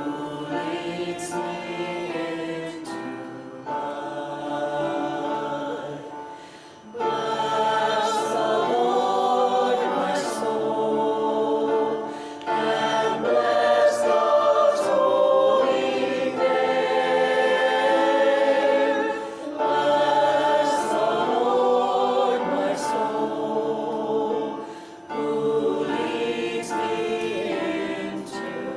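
Choir singing a hymn in sustained phrases with short breaks between lines.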